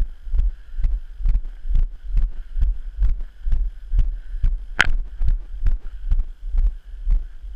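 Walking footsteps thudding through a body-worn camera, about two a second, over low wind rumble on the microphone. A single sharp click about five seconds in.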